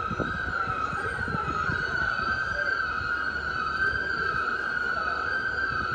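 A siren sounding continuously at one high pitch that wavers slowly up and down, over a steady low rumble.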